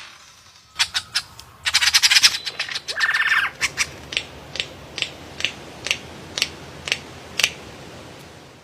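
A bird calling: a harsh burst and a buzzy rattle, then a run of short sharp calls repeated about twice a second.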